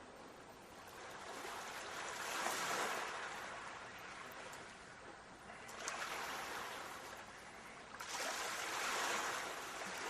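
Sea waves breaking and washing up a shore: three surges of surf, each swelling and then fading, about three seconds apart.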